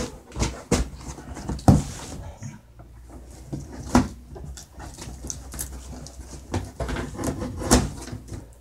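Knife cutting the packing tape on a large cardboard box, with scraping and rustling of cardboard and several sharp knocks as the box is handled, the loudest about a second and a half in.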